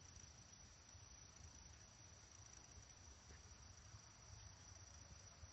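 Near silence with the faint, steady high trill of crickets and a faint low rumble underneath.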